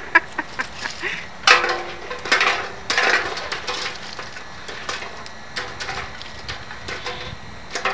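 Scattered knocks and clatter, with brief voices in between.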